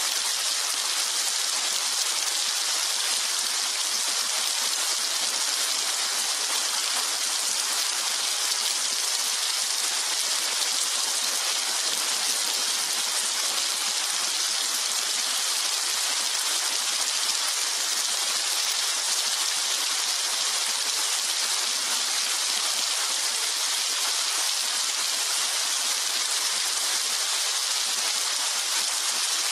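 Steady heavy rain, an even hiss that holds at one level without any audible thunder.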